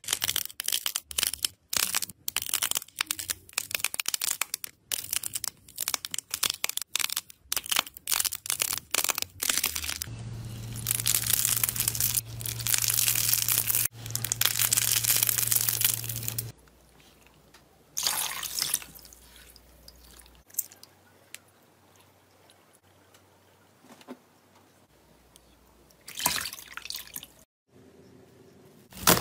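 Slime worked by hand: a quick run of sticky pops and clicks as a blue slime of glossy bead-like balls is pulled apart, then a steady crackle as a pink foamy slime is squeezed. A quieter stretch of scattered squishes follows, with a louder crinkle near the end as a metal masher presses foil-wrapped slime.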